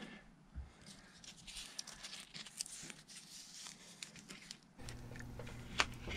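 Faint rustling, crinkling and small ticks of a strip of double-sided mounting tape being handled, lifted and pressed down along a metal light fixture. A low steady hum comes in about five seconds in.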